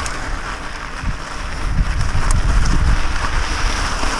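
Wind buffeting the microphone of a bike-mounted camera, with the tyres of a mountain bike rolling and crunching over a loose gravel and dirt trail.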